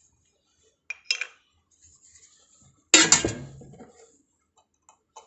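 Steel parts of a multitool axe clinking and knocking together as it is taken apart: a few light clinks about a second in, then a loud metal clank about three seconds in that rattles and rings off over about a second.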